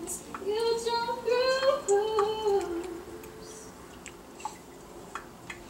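A voice softly singing a short wordless tune in two phrases, rising then falling, which stops about three seconds in; a few faint ticks follow.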